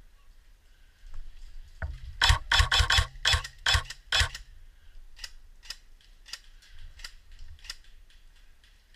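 Airsoft guns shooting: a rapid string of sharp cracks about two seconds in, then scattered single shots a few times a second.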